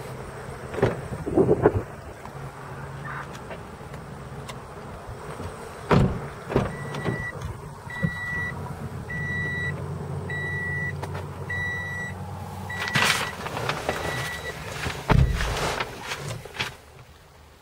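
Toyota Corolla's electronic warning chime beeping while the door stands open, about seven evenly spaced beeps roughly one a second. A knock comes about six seconds in, and a heavy car-door thump about fifteen seconds in, the loudest sound.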